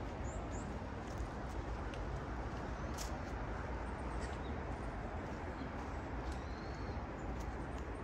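Footsteps on a snowy, leaf-strewn trail, heard as a few faint irregular steps over a steady low city hum, with a few faint bird chirps near the start and about six seconds in.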